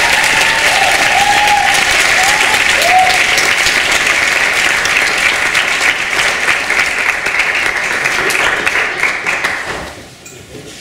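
Theatre audience applauding, with a few voices calling out over the clapping in the first three seconds; the applause dies away about ten seconds in.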